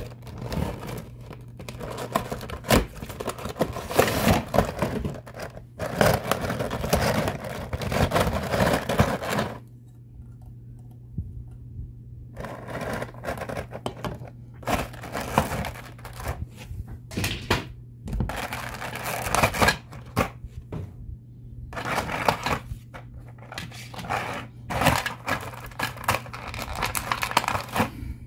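Clear plastic packaging trays of a die-cast model airliner being handled: irregular crinkling and scraping in bursts, with a quiet stretch of about three seconds about a third of the way in, over a steady low hum.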